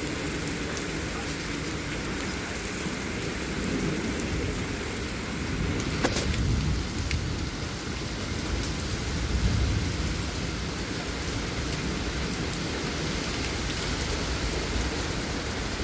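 Heavy rain and wind of a derecho storm, a steady rushing noise. A sharp crack comes about six seconds in, and a low rumbling swell a few seconds later.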